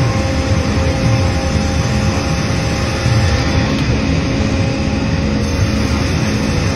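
Sawmill machinery running steadily, the saw and chain conveyors together making a loud, even drone with a constant hum.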